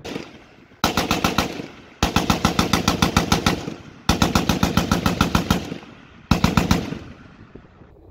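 Belt-fed machine gun firing four bursts of automatic fire at about ten rounds a second. The two middle bursts are the longest, and each burst trails off as it echoes.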